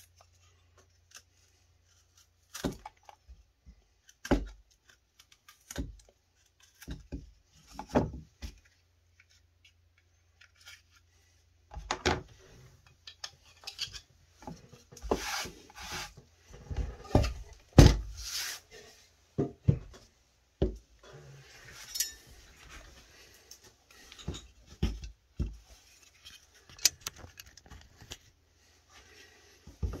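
A knife whittling softwood cut from a 2x4, paring and shaving it in short scraping strokes, with rubbing and the knocks of the wood and tools on the work board. The strokes come singly at first and in a busier run from about twelve seconds in.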